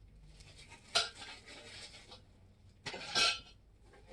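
Metal grill parts knocking and clattering as they are handled and unpacked: one sharp clink about a second in, then a longer rattle around three seconds.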